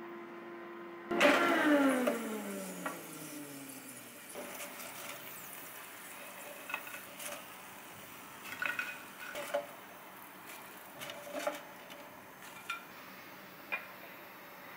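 Kitchen tongs clicking and tapping against a pan, an air fryer basket and plates, in scattered light clinks. About a second in, a louder clatter comes with a whine that falls steadily in pitch over about three seconds.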